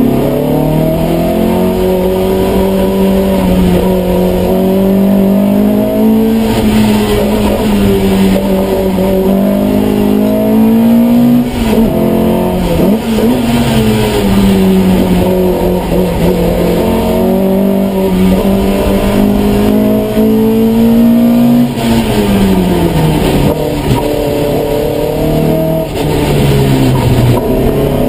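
Opel Kadett C hillclimb race car's engine running hard at high revs, heard from inside the cabin. Its pitch holds high, drops sharply about twelve seconds in and again about twenty-two seconds in as the revs fall, then climbs again.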